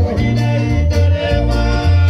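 Loud dance music: a singing voice over a heavy bass line and a steady drum beat.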